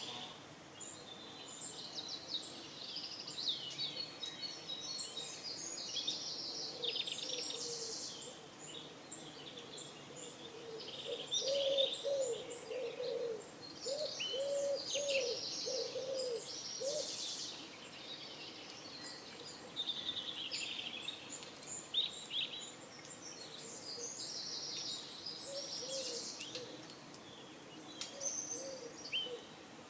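Small birds chirping and twittering in a busy morning chorus, with a pigeon cooing in a run of low, repeated coos from about a third of the way in to just past the middle.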